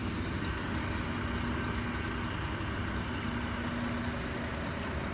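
Vehicle engine running steadily with a low rumble, with a faint hum that comes and goes.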